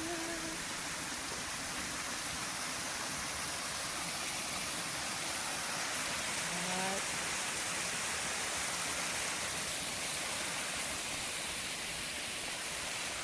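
Steady rush of running water from a small waterfall or stream.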